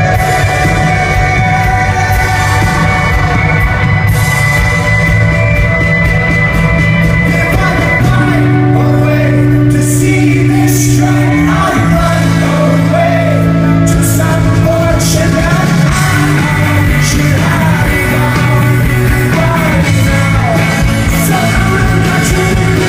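A rock band playing live at full volume, with a singer coming in about eight seconds in over long held bass notes.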